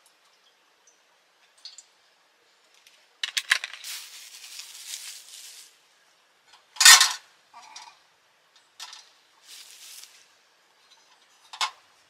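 Metal mess tin and food being handled: a few clicks and a rustling stretch, then one loud knock on the tin about seven seconds in, followed by lighter clinks and rustles.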